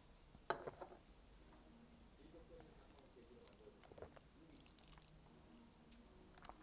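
Faint close-up chewing of malatang (spicy noodle soup), soft wet mouth sounds with a sharp click about half a second in and a few small clicks later.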